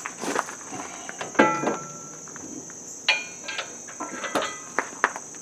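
A string of metal clanks and clinks, several with a brief ring, as a heavy steel bar is set in place on a compact tractor and a bolt is started. A steady high insect trill runs behind.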